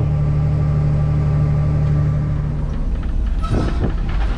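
Tractor engine running steadily under load while pulling a grain cart up to a semi to unload corn, a deep constant drone. A little under three seconds in the drone changes, and a short wavering pitched sound follows.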